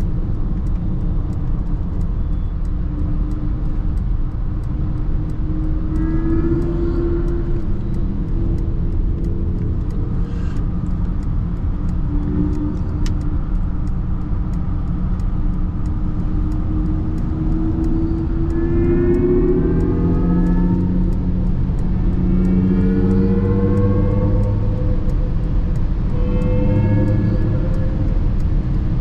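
Mercedes-Benz EQS 580 electric sedan driving at autobahn speed: a steady tyre and wind rumble, with a rising whine that climbs in pitch about four times as the car accelerates.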